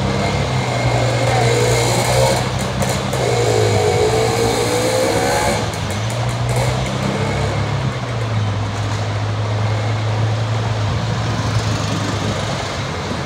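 Vehicle engine running while driving: a steady low drone that steps down and back up in pitch a few times as the speed changes. A higher engine note rises and falls over the first few seconds.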